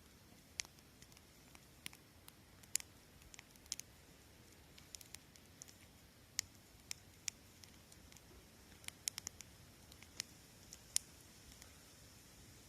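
Wood campfire crackling: irregular sharp pops and snaps, a few clustered together around the middle and near the end, over a faint steady hiss.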